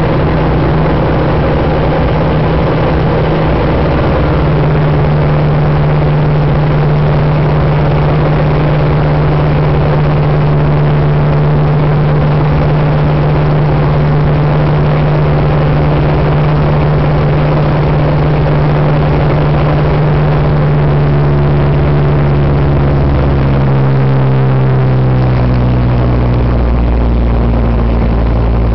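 Ultralight aircraft engine running at a steady drone in flight, then throttled back about three-quarters of the way through, its pitch dropping in steps as the aircraft descends on approach to the runway.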